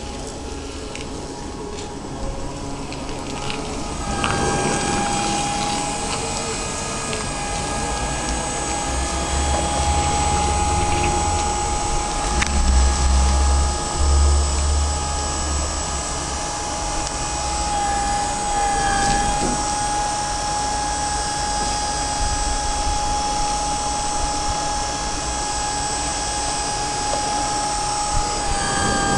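Mobile crane's hydraulic drive running with a steady high whine that sets in about four seconds in, over a continuous machine hum. A deeper rumble swells in the middle.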